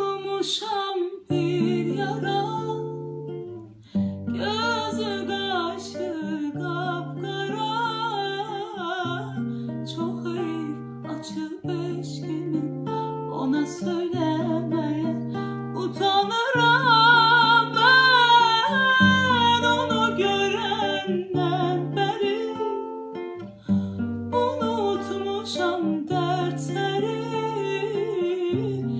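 A song: a singing voice with heavy vibrato over a repeating instrumental accompaniment of held notes, rising to its loudest a little past the middle.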